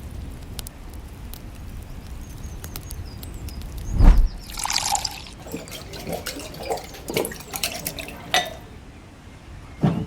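Water dripping in small ticks, then a heavy thump about four seconds in followed by a short splash of liquid, with scattered knocks and clicks of kitchenware and another thump near the end.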